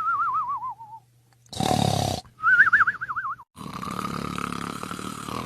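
Comic cartoon-style snoring: a whistle that wobbles rapidly in pitch and falls, a short rasping snore about a second and a half in, a second wobbling whistle, then a long hissing breath with a thin steady whistle through it.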